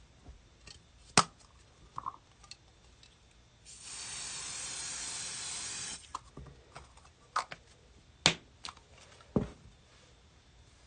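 Spraynbond Pattern and Stencil temporary adhesive spray hissing in one steady burst of about two seconds, with sharp clicks and taps of handling before and after it.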